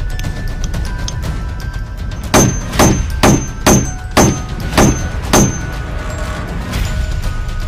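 Seven sharp blows of a steel hatchet's hammer head on a nail being driven into wood, each with a short metallic ring, spaced about half a second apart, over background music.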